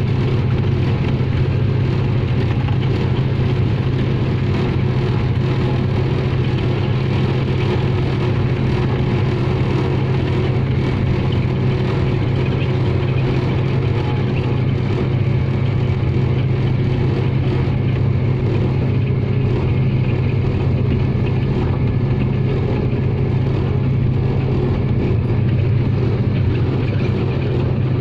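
Diesel-electric locomotive running steadily at speed under a constant engine drone with a strong low hum, mixed with wheel-on-rail and rushing-air noise.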